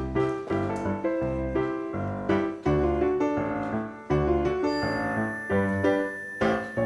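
Background music played on piano or keyboard: a run of distinct notes over a bass line.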